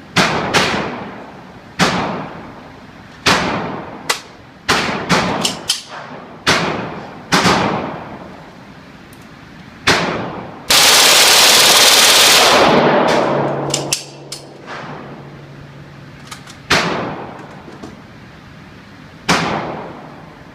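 FN P90 submachine gun firing single shots and short bursts, each shot trailing off in an echo. About eleven seconds in comes one long full-auto burst of about two seconds.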